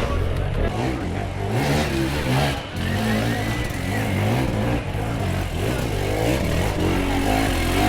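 Dirt bike engines revving in short blips, their pitch jumping up and down over and over.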